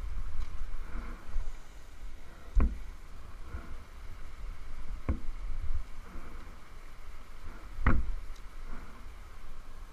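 Three sharp knocks a few seconds apart, the last the loudest, over a low rumble of rubbing and handling: climbing gear bumping against a cedar trunk during a rope descent.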